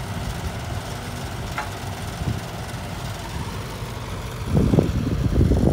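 Diesel engines of a dump truck and an excavator running with a steady low rumble, growing louder and rougher about four and a half seconds in.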